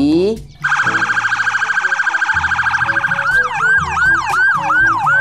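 Electronic emergency-vehicle siren. From about half a second in it gives a rapidly pulsing steady tone, and about three seconds in it changes to a quick, repeated falling-and-rising yelp.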